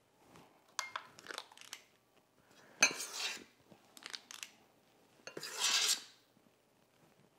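Metal trigger scoop clicking and scraping against a stainless steel mixing bowl as sticky dough is scooped out: a scatter of sharp clicks, the loudest about three seconds in, and a longer scrape shortly before the end.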